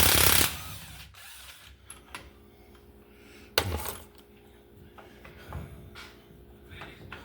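Metal tools and parts being handled during a rear differential teardown: a brief loud burst of noise at the start, then a single sharp metallic knock about three and a half seconds in, with a few faint clicks between.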